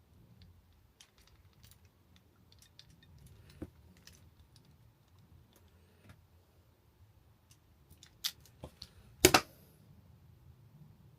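Light clicks and handling noise from a hand crimping tool and small cable connector parts, with a few sharper clicks and a loud sharp snap about nine seconds in as the tool closes on or releases the crimp.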